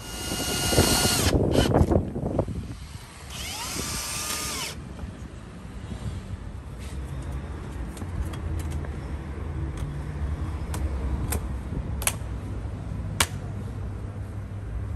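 A cordless drill-driver whirs in two short bursts with a steady whine, the second spinning up to speed, followed later by a few sharp clicks from a plastic number-plate holder being fitted.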